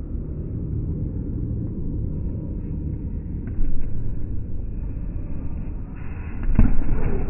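Low, muffled rumble of a sports hall, with two sudden thuds from sabre fencers' feet stamping down as they lunge, one about three and a half seconds in and a louder one near the end.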